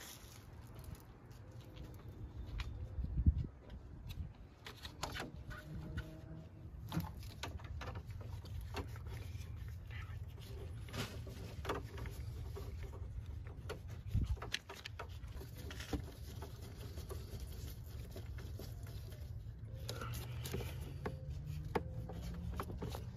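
Scattered light clicks and taps of gloved hands working in an engine bay, fitting a new fuel pressure sensor into the fuel rail. One louder knock comes about three seconds in, over a low steady rumble.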